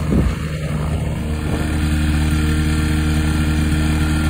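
Kawasaki 440 two-stroke twin engine of an Airbike ultralight running steadily with its propeller turning, a little louder from about a second and a half in.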